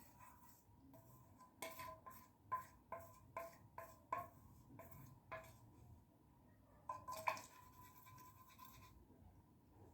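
Plaster being stirred in a small hard container, the stirrer tapping and scraping against its sides: a run of light, slightly ringing taps, then two more a little later.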